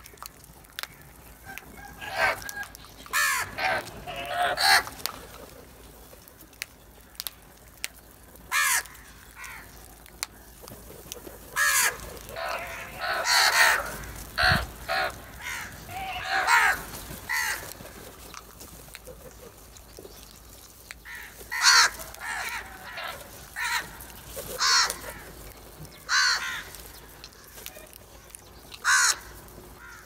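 A flock of house crows cawing, with harsh calls coming in bunches of several at a time and quieter gaps between them.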